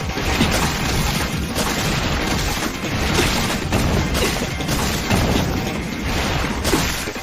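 Anime fight-scene sound effects: a dense, unbroken run of crashes and impacts over a music score.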